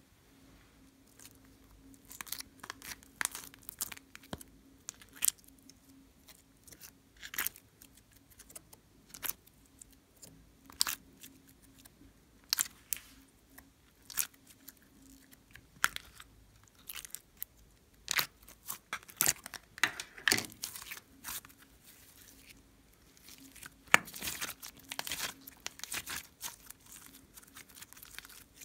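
Slime being squeezed out of plastic piping bags and stretched and folded by hand, giving irregular sticky clicks, pops and crackles.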